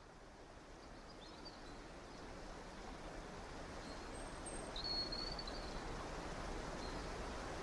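Sea ambience: a steady, fairly faint rush of wind and water fading in slowly, with a few short high bird chirps about a second in and again near the middle.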